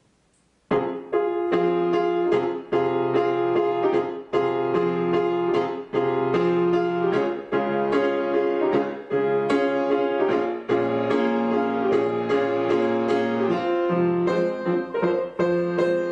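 Piano music starting abruptly under a second in, after near silence, with a steady run of repeated notes.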